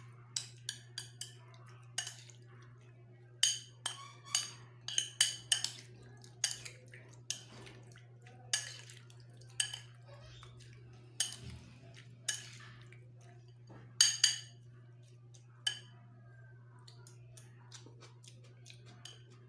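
Metal spoon clinking and scraping against a bowl in irregular flurries as a raw fish salad of needlefish, onion and chilli is tossed, over a steady low hum.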